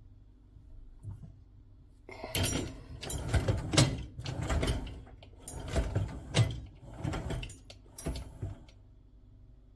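A run of clattering and knocking, like a door or drawer being moved about, starting about two seconds in and going on in uneven surges for around six seconds.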